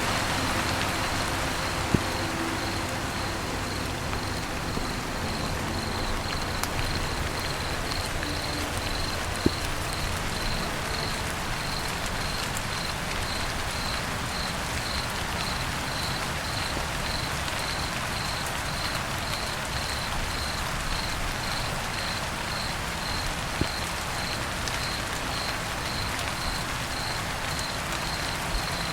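Steady rain falling on a roof, with a few sharp drop ticks. A high, faint chirp repeats about twice a second through most of it.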